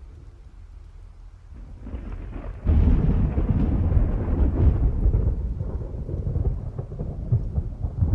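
Thunder: a low rumble builds, then breaks into a loud, sudden crackling clap about two and a half seconds in, followed by a long rolling rumble that slowly eases.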